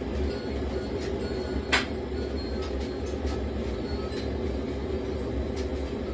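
A steady low mechanical rumble with a hum, broken by scattered light clicks and one sharper click a little under two seconds in.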